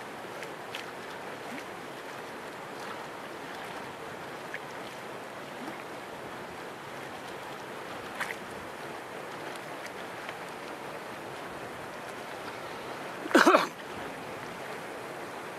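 Steady hiss of wind and small waves on open water. About 13 seconds in comes a brief loud cry with a clear pitch, and a faint shorter one about 8 seconds in.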